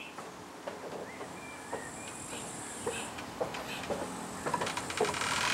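Outdoor ambience: a few faint bird chirps and scattered light knocks, with a hiss that grows louder near the end.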